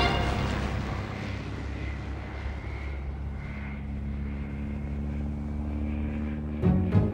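Small single-engine propeller plane flying past, its engine a steady drone. A sudden low hit comes near the end.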